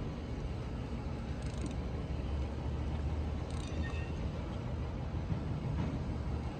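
Steady low background rumble, with a few faint short clicks.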